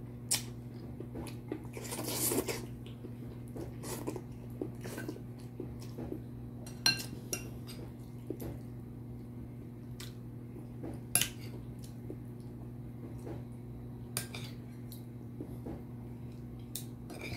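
Chopsticks and a spoon clicking and scraping against bowls during eating, with a short slurp of noodles about two seconds in, over a steady low hum.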